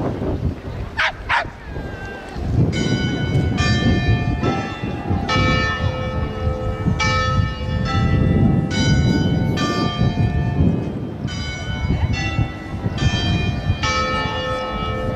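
Carillon bells in the Fatima basilica's tower chiming a slow tune, single notes of differing pitch about one a second, starting about three seconds in.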